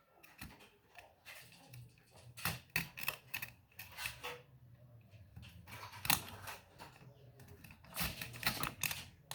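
Knife blade scraping and clicking against a microwave control board in short, irregular strokes, shaving off excess material so the part will fit around the screw.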